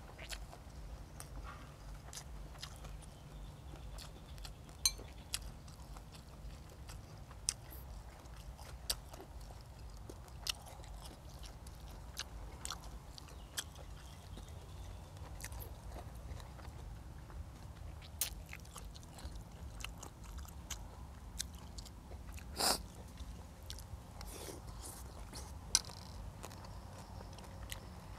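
Close-up mouth sounds of a person chewing and biting into food, the spicy stir-fried frog and raw vegetables of a mukbang meal. Soft wet chewing is broken by many short sharp crunches and clicks, with one louder crunch near the end.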